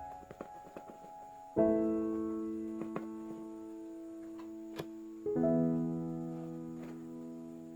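Piano music: a held chord is struck about a second and a half in and another about five seconds in, each ringing on and fading slowly.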